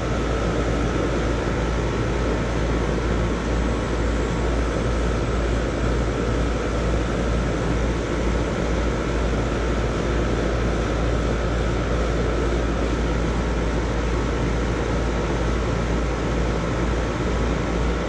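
R-410A split-system air conditioner's outdoor condensing unit running: a steady hum of the compressor and condenser fan, with a thin, steady high whine above it. The unit is running while its refrigerant charge is checked on gauges.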